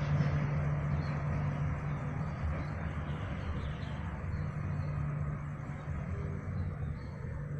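Passenger train running by, a steady low engine hum under rolling noise that slowly fades as it moves away.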